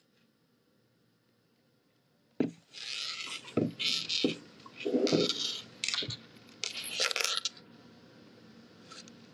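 Small objects being rummaged through and handled close by: a run of sharp clatters, scrapes and rustles starting suddenly about two and a half seconds in and dying away near the end.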